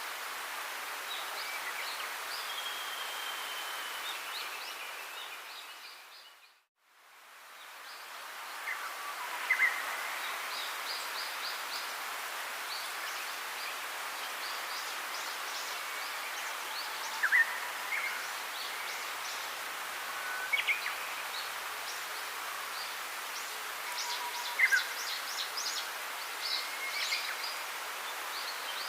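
Outdoor ambience of assorted birds chirping and calling over a steady hiss. It fades out to silence about six seconds in and fades back up a second or two later, like a looped nature-sound track.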